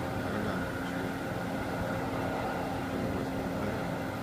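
CNC milling machine cutting Inconel with a coated carbide insert milling cutter under flood coolant: a steady machine drone with a few held tones.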